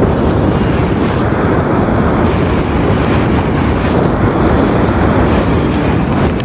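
Wind from a hang glider's flight rushing and buffeting over the microphone, loud and steady.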